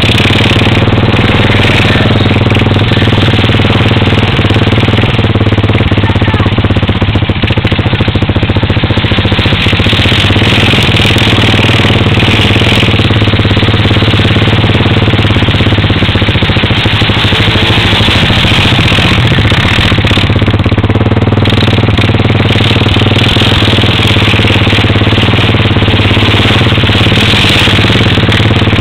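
ATV (quad bike) engines running loudly and steadily, with little change in pitch, as the quads churn through mud and water.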